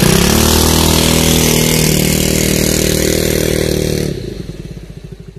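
Small Honda engine in a homemade mini speed boat revving up just after starting and running fast and steady. About four seconds in it cuts out abruptly and its beats slow and fade as it winds down.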